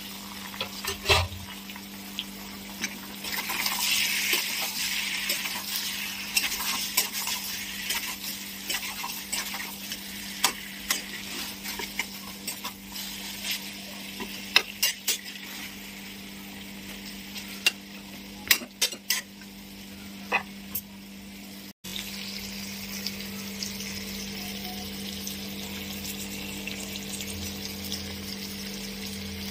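Chicken pieces in thick masala sizzling in a metal kadai while a metal spatula stirs them, clicking and scraping against the pan. About two-thirds of the way through the stirring stops and only a steady sizzle is left, over a low steady hum.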